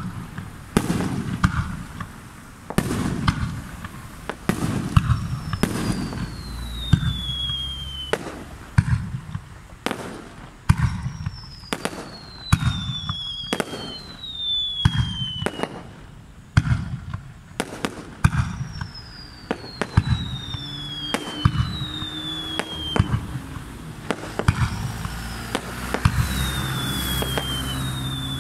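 Aerial fireworks display: a rapid, uneven series of shell bursts, each a sharp bang with a low rumbling tail. Several whistles drop steadily in pitch, often overlapping. A crackling hiss comes in near the end.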